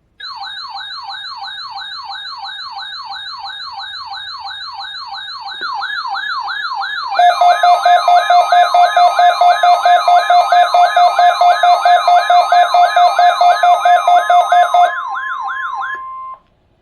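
Electronic emergency alert siren: a fast up-and-down wail repeating about three times a second. About seven seconds in, a loud pulsing beep joins it, beeping about four to five times a second, and a steady tone is added later. All of it cuts off abruptly shortly before the end.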